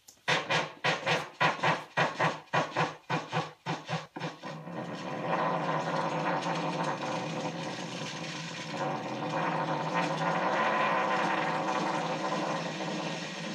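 Motor-driven sound-art machine with a wooden dowel arm on a wooden plank, set going: a rhythm of sharp pulses about three a second that quicken and merge, after about four seconds, into a steady whirring noise.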